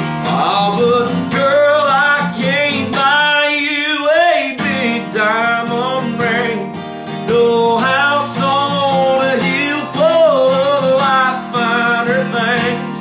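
A man singing live to his own strummed acoustic guitar. The guitar drops out briefly about three seconds in while the voice carries on, then comes back in.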